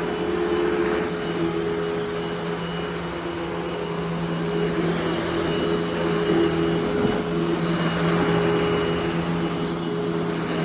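Eureka The Boss Smart Vac upright vacuum cleaner running steadily: a constant motor hum with a faint high whine, under a shifting rush of suction.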